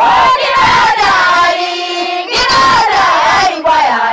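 A group of Samburu women singing a traditional song together, high voices in sung phrases with a short dip a little after one and a half seconds.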